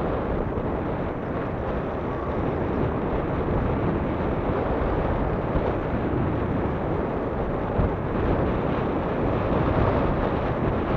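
Steady rush of wind on the microphone of a moving recumbent bike, mixed with the rolling noise of its tyres on asphalt.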